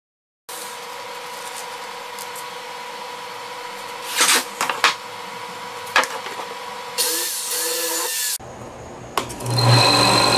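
Workshop tool sounds during canvas stretching: a steady hum with a few sharp knocks, a short louder hiss, then a power tool starting up and running near the end.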